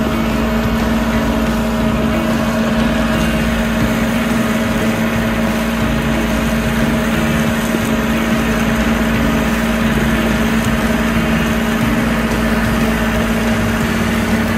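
John Deere 6130R tractor's four-cylinder diesel running steadily while its side-mounted boom mower spins through the roadside grass, an even, unbroken hum.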